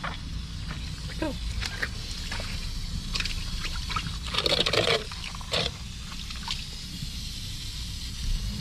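Water splashing and trickling as a live, slippery catfish is handled, with scattered small splashes and one louder splash about halfway through.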